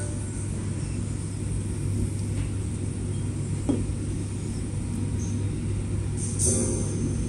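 Steady low rumbling hum of restaurant room noise, with no distinct event standing out.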